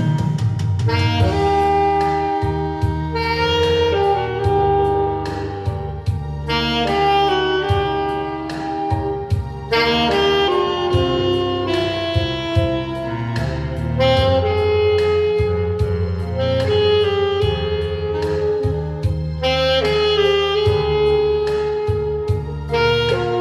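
Saxophone playing a melody over a band backing with bass and drums, in a jazzy style.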